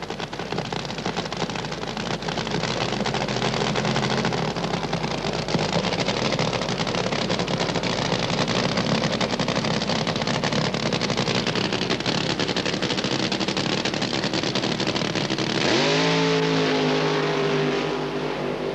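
Drag-racing funny car engine running loudly and roughly on the start line, then revving up sharply near the end to a high, held note as the car launches.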